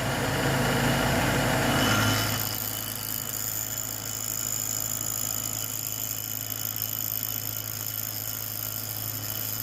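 Steady machine hum from a running motor, dropping to a slightly lower, quieter drone about two seconds in.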